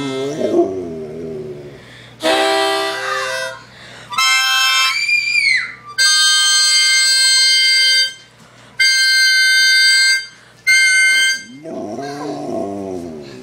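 A white spitz-type dog "talking": wavering, rising-and-falling howls at the start and again near the end. In between, a harmonica plays several separate held notes, one bent up and back down.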